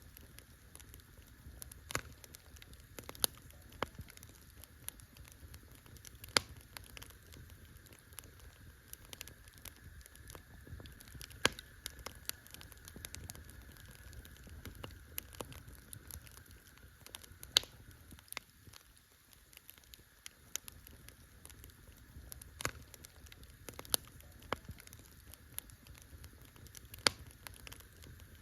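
Campfire of burning wood crackling: irregular sharp pops and snaps, a handful of them much louder than the rest, over a low steady rumble.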